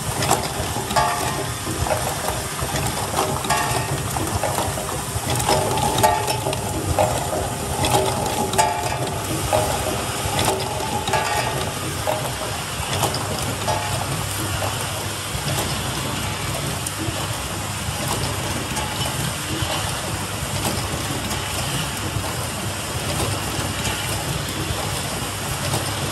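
Pneumatic automatic toy gearbox assembly machine running: a steady mechanical hum with rattling and sharp clicks from its stations. About halfway through the rattle thins out, leaving a steady hum and hiss.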